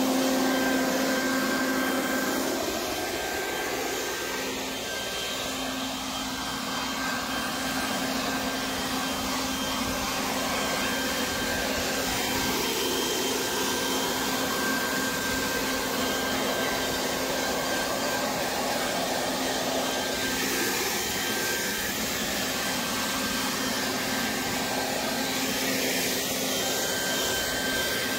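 Harbor Freight Portland 12-amp corded electric 3-in-1 blower-vacuum-mulcher running in blower mode, blowing dry leaves. A steady motor whine sits over a rush of air.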